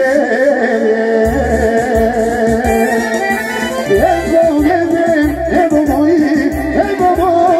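Live amplified folk music from a keyboard band through a PA speaker: a wavering melody over a pulsing bass beat that drops out briefly mid-way and then comes back.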